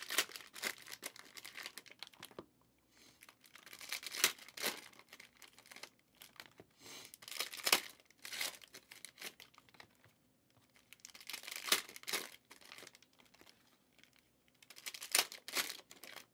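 Cellophane wrappers of trading-card cello packs being torn open and crinkled, in short bursts every three to four seconds.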